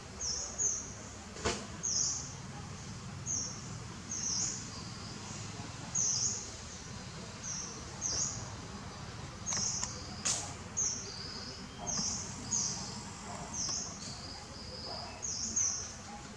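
Short, high chirps, often in pairs, repeating about once a second over a steady low outdoor background, with a couple of sharp clicks, one near the start and one about two-thirds of the way through.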